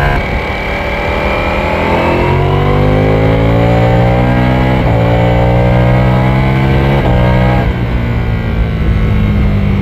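Ducati Panigale V4S's 1,103 cc V4 engine accelerating hard, revs climbing through the gears. The pitch drops sharply at two quick upshifts, about five and seven seconds in, then holds fairly steady.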